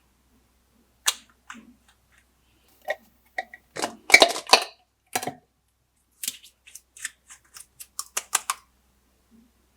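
Glossy slime being pressed and stretched by hand, giving an irregular run of sharp clicks and pops. They start about a second in, bunch together loudest about halfway, and thin out near the end.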